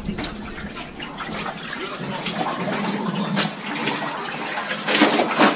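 Water sloshing and splashing as clothes are washed by hand in a basin of soapy water, with a few sharper splashes.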